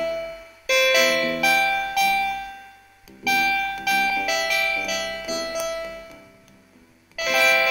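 Electric-piano-like keyboard music: short phrases of struck notes that ring and fade, with two brief near-silent pauses between phrases.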